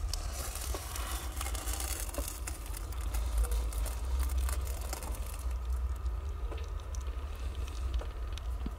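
Newborn kittens nursing against their tabby mother cat: a close, crackly rustle of fur and bedding with many soft clicks, over a steady low rumble.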